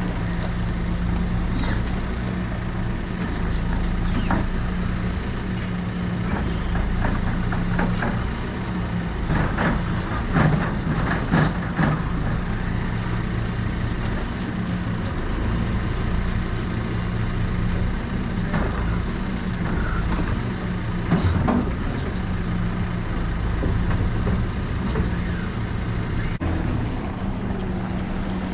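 JCB telehandler's diesel engine running steadily while it carries and sets down a load of scaffold parts, with a cluster of metal clanks and rattles about ten seconds in and a few more knocks later.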